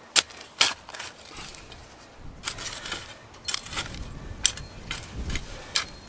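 Steel shovel blade of an AdventureMate AMV2 multitool being driven into hard, gravelly soil, with about six sharp strikes spaced unevenly.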